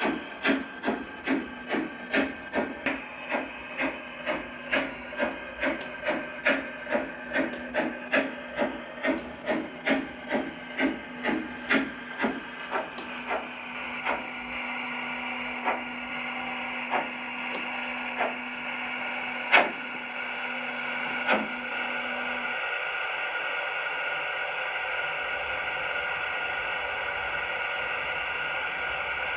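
LGB model steam locomotive's sound unit chuffing in a steady beat of a little over two a second, which fades out about halfway through as the train comes to a stand. Then a steady hiss of steam, with a low hum that stops later on and a few single sharp clanks.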